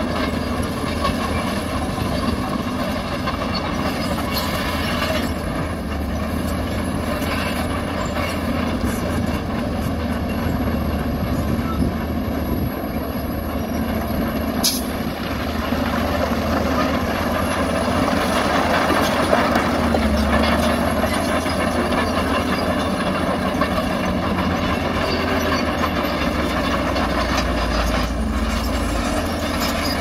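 Crawler bulldozer at work: diesel engine running steadily while its steel tracks clank and squeal, a little louder in the second half.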